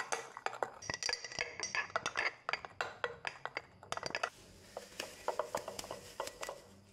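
A spoon stirring flour and water in a glass jar, making quick clinks and scrapes against the glass as the sourdough starter is mixed. About four seconds in, the clinking gives way to the softer crinkle of plastic cling wrap being stretched over the jars.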